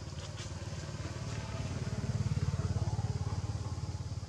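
Low, steady drone of a motor vehicle's engine with a fast even pulse, swelling to its loudest two to three seconds in and easing off again, like a vehicle passing.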